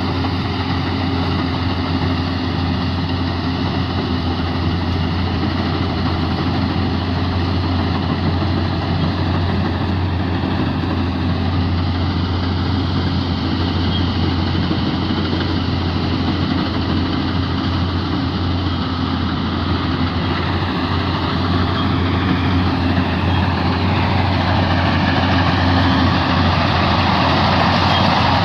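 K-BOS 880 combine harvester running steadily while harvesting rice: a constant engine hum under a dense layer of machinery noise. It gets a little louder near the end.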